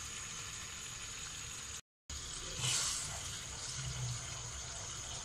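Soft liquid sounds of thin Manchurian gravy simmering in a non-stick kadai as cornflour slurry is poured in and stirred. The sound drops out for a moment just before two seconds in.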